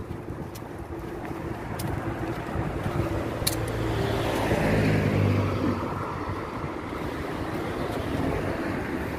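A car passing by on the road. Its engine and tyre noise swell to a peak about halfway through, the engine note dropping in pitch as it goes past, then fade to a steady hum.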